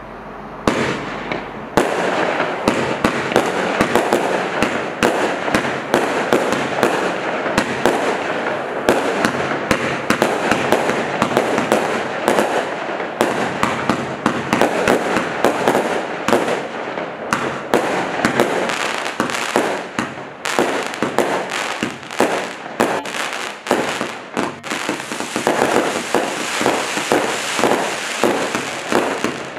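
Black Cat Nightscape single-ignition firework cake firing a continuous barrage. Launches, bursts and crackling pops follow one another rapidly from about two seconds in, with a hissing crackle growing denser near the end.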